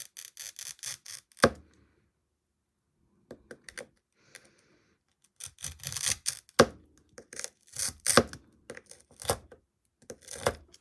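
Sharp clicks and scratchy scrapes of a small piece of modern mirror glass being cut to size and handled, in two spells with a pause between; the loudest click comes about a second and a half in.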